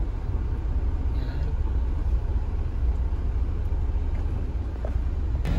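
Engine and road rumble of a small delivery truck moving off, heard from inside the cab: a steady low drone. A short click near the end.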